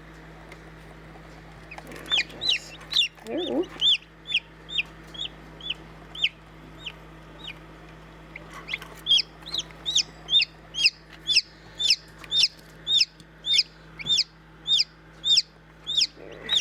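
A newly hatching chick peeping loudly and repeatedly, short high peeps at about two a second, with a pause of about two seconds in the middle.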